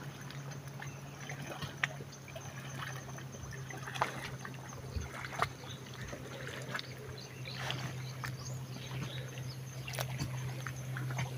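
Faint trickling and lapping of river water along the bank, with a steady low hum underneath and a few small scattered clicks.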